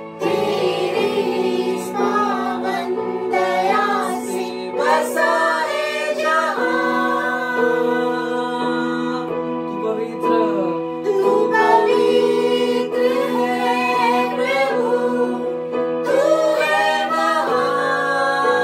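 A small worship group singing together over sustained electronic keyboard chords.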